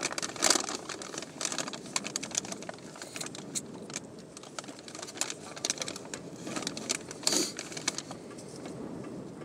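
Scattered light clicks and taps at an irregular pace, with a louder knock about half a second in and another just after seven seconds.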